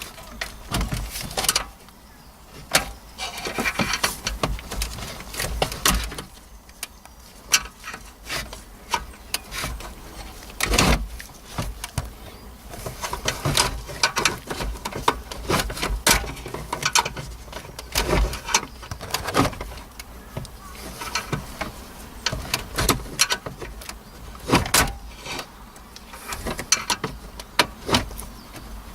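Irregular plastic clicks, knocks and handling rattles as wiring connectors are pressed at their release tabs and pulled off the back of a car radio unit, with a few sharper knocks among them.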